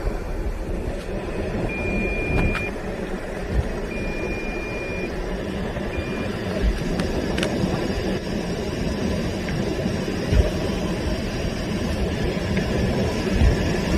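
Car driving on a snowy road: a steady low rumble of engine and tyre noise. Three short high beeps come about two, four and six seconds in, the last one very brief.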